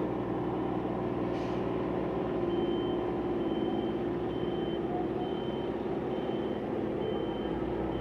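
A heavy vehicle's reversing alarm begins beeping a couple of seconds in, one high beep about every second, over the steady running of a diesel engine.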